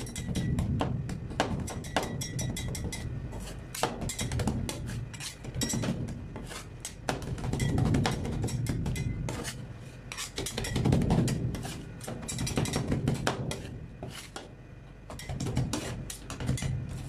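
Two metal spatulas chopping and tapping on a frozen steel ice-cream-roll plate, mashing chopped Snickers into the cream base: rapid, irregular metal clicks with dull thuds, easing off briefly near the end.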